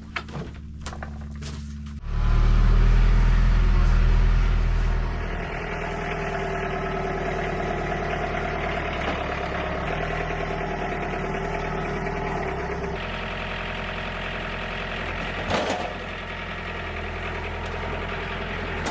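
Sawmill engine running steadily, with a few sharp clicks in the first two seconds and a louder low rumble from about two seconds in that eases after about three seconds.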